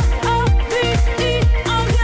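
Background dance-pop music with a steady kick-drum beat, about two beats a second, under synth melody.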